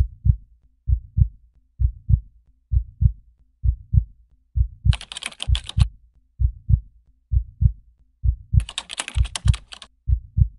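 Heartbeat sound effect: paired low thumps (lub-dub) repeating about once a second. Two bursts of fast crackling static, each about a second long, break in about 5 s and 8.5 s in.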